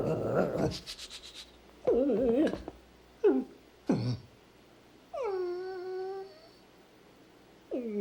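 Dog whining and whimpering: several short, falling cries, then a longer whine about five seconds in that drops and holds.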